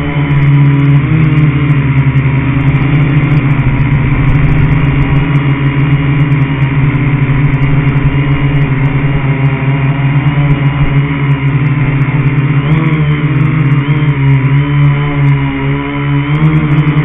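Quadcopter's electric motors and propellers whining steadily and loudly, the pitch wavering and gliding a little as the throttle shifts.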